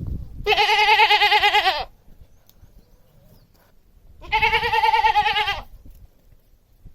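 Domestic goat bleating twice, each a wavering, quavering call lasting over a second, about two and a half seconds apart.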